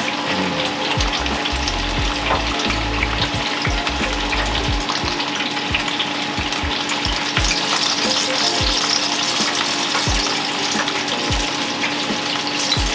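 Battered apple slices deep-frying in hot oil at about 180 °C: a steady sizzling crackle, with a faint steady hum underneath and a few dull low thuds.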